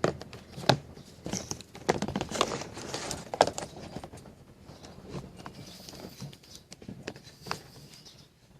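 Irregular clicks, knocks and scraping of small hard objects being handled, with a few sharp knocks standing out.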